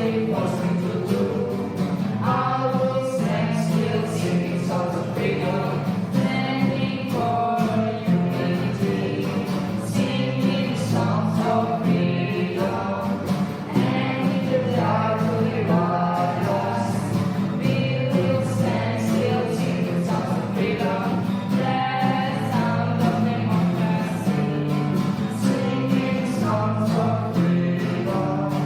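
Music: a song with choir-like singing over instruments and a steady beat.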